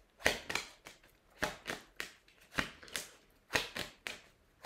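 A deck of divination cards being shuffled by hand: short crisp card slaps, mostly in pairs, about one pair a second.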